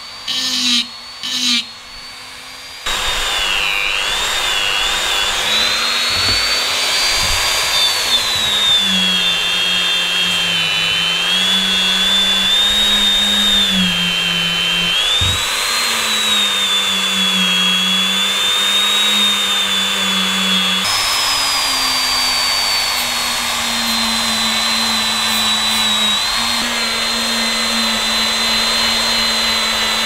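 Handheld rotary tool spinning a small abrasive polishing wheel against the metal parts of an antique coffee grinder. It runs in a few short bursts at first, then continuously with a high whine whose pitch wavers, sags and recovers.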